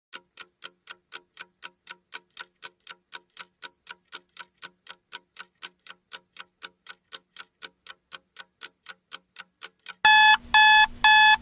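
Countdown-timer sound effect: a clock ticking about four times a second for ten seconds, then three loud alarm beeps as the timer runs out.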